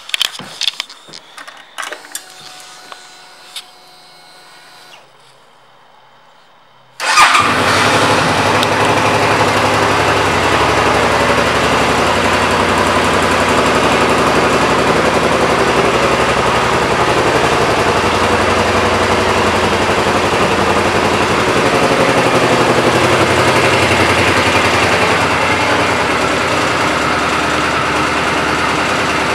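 A 2011 Suzuki Boulevard C50T's 805 cc V-twin engine starts about seven seconds in after a few faint clicks, then idles steadily.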